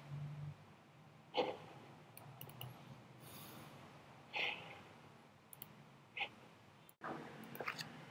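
Quiet room tone with a few faint, scattered computer mouse clicks and a couple of soft breaths.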